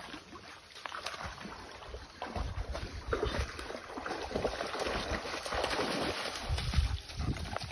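Dogs splashing and wading through a shallow creek, water sloshing and churning around their legs, getting louder about two seconds in.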